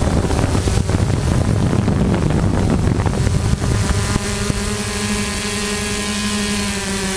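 A hexacopter's motors and propellers heard from its own onboard camera. First comes a rushing, wind-like noise, then from about three and a half seconds in a steady droning hum as the drone hovers.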